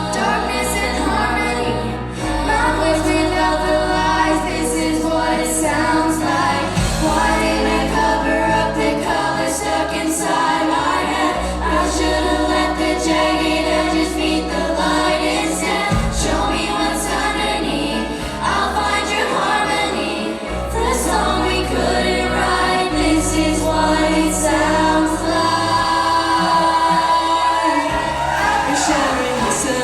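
A junior vocal group singing a pop song arrangement together over backing music, with low bass notes that change every few seconds beneath the voices.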